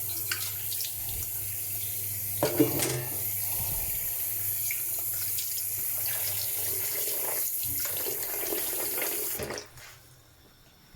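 Kitchen tap running steadily, with a couple of light knocks, then turned off near the end.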